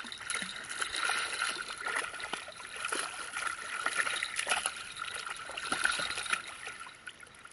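Hooked smooth-hound shark thrashing at the surface, a run of irregular water splashes.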